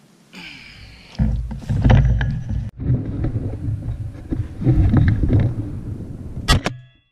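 Rumbling handling noise and wind buffeting on a GoPro mounted on a shotgun as the gun is picked up and carried, with rustling of dry grass and a sharp knock near the end.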